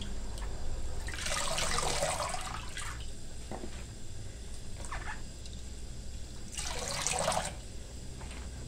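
Water splashing and dripping as handfuls of blanched black cabbage leaves are lifted out of a bowl of cold water and squeezed out. There are two longer splashes, about a second in and about seven seconds in, with a few single drips between them.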